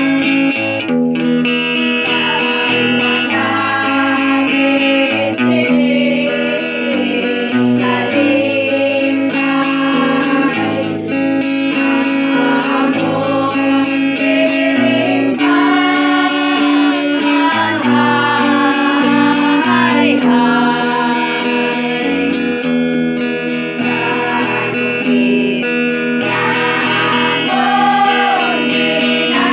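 A group of voices singing together, with an acoustic guitar strummed along and long held notes.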